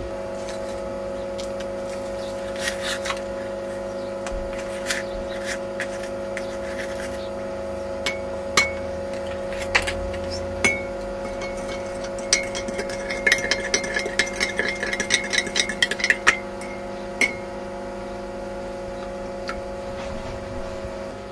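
Glassware being handled: scattered clinks and taps, then a quick run of ringing clinks for about four seconds past the middle, over a steady hum.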